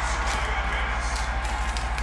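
Background music playing, with soft clicks of trading cards being flipped through by hand and a steady low hum underneath.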